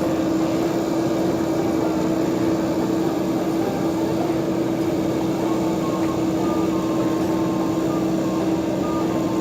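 Backhoe loader engine running steadily, an even rumble with a constant droning tone through it.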